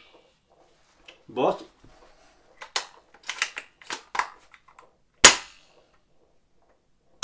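Spring-powered bolt-action airsoft sniper rifle (an upgraded Ares Amoeba Striker AS02) during an air seal test with the barrel end covered: the bolt is cycled with a string of sharp clicks, then about five seconds in the piston fires with a single loud crack, and another short snap comes right at the end. The speaker calls it loud and takes it to show the gun still works and seals well.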